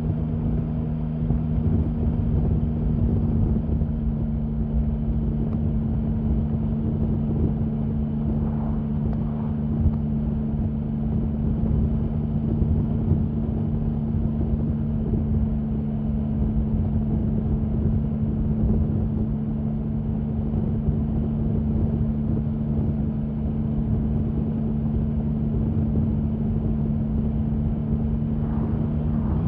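Triumph Sprint 1050 motorcycle's 1050 cc inline three-cylinder engine running at steady, unchanging revs, with a constant rush of noise beneath it.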